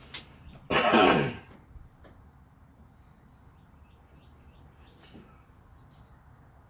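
A man clears his throat once, a short rough burst with a falling pitch about a second in. Faint bird chirps follow.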